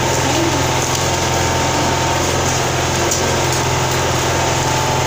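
A steady low hum under an even hiss, with no change in level.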